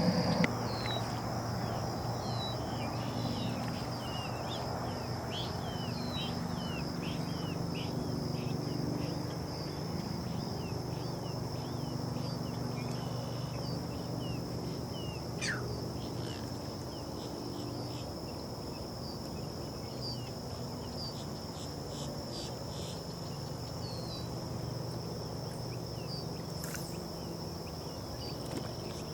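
Marsh ambience: a steady high-pitched insect trill, typical of crickets, with many short high chirps that are thick in the first ten seconds and sparse afterwards, and one long falling whistle about halfway through, over a low steady hum.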